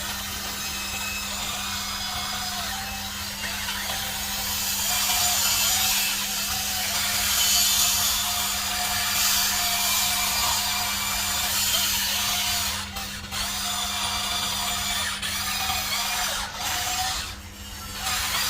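Small electric motors and gearboxes of a radio-controlled construction toy running with a steady whir and whine, stopping briefly several times near the end.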